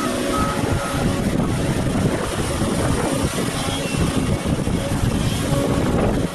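Volvo crawler excavator's diesel engine running under load as the machine moves and digs, with a backup alarm beeping a few times near the start.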